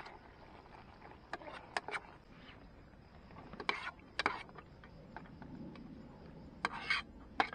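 A utensil scraping and clinking against a camping cook pot as food is stirred, in short strokes coming in three small groups.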